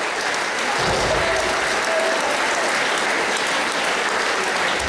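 Audience applauding steadily, with a dull low thump about a second in.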